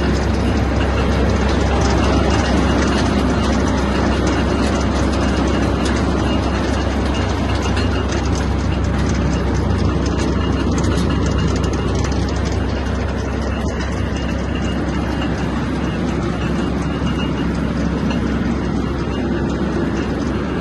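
Claas Variant 380 round baler running steadily on a tractor's power take-off, its mechanism giving a dense, continuous clatter over the low drone of the tractor engine.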